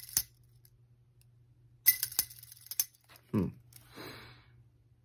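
Light metallic clicks and a quick run of clinks about two seconds in, from the metal blades and wire arm of a buzzbait being handled. Then a short hum from the voice and an exhale.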